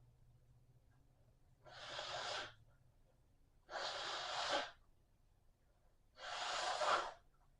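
Three forceful, breathy exhalations from a person, each just under a second long and about two seconds apart, the last one the loudest.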